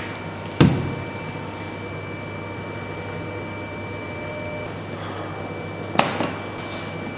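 A hard-shell briefcase set down on a table with a sharp knock about half a second in, then its latch clicking open near the end, over a steady background hum.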